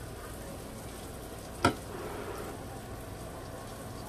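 Parmesan-breaded tilapia fillets frying in oil in a skillet, a steady sizzle. One sharp knock comes about one and a half seconds in.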